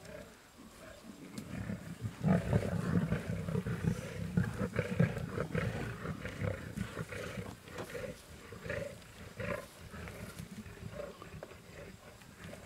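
Lions growling at a buffalo kill as they squabble over the carcass. The growls grow loud about two seconds in and are strongest for a few seconds, then carry on more quietly in short bursts.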